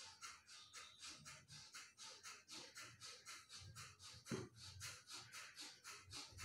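Kapalbhati breathing: rapid forceful exhalations through the nose, driven by quick pulls of the belly, in an even rhythm of about three strokes a second, each a short hiss. A single louder low thump comes a little after four seconds.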